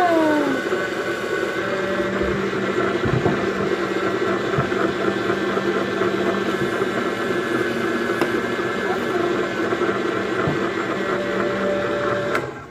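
Small electric motor of an egg-spinning decorating toy whirring steadily as it turns an egg against felt-tip markers to draw stripes on the shell. It stops suddenly near the end.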